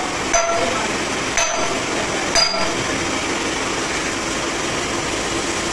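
Sledgehammer striking the heated spindle stub on a heavy truck's rear axle housing three times, about a second apart, each blow ringing like struck steel, knocking the broken spindle off the housing. A steady hiss runs underneath.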